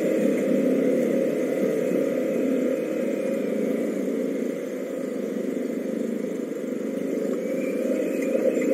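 Small 125 cc motorcycle being ridden, its engine and the rush of the ride steady, easing off a little mid-way and picking up again near the end. The bike is new and being run in, so it is ridden at moderate revs.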